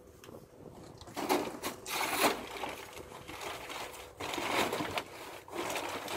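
Charcoal being handled: several irregular bursts of rattling and rustling as briquettes and the charcoal bag are moved.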